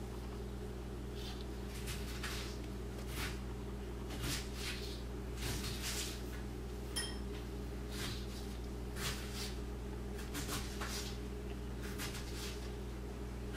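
A spatula spreading frosting over a cake's top, making soft, repeated scraping swishes, with one small sharp click about seven seconds in. A steady low hum lies underneath.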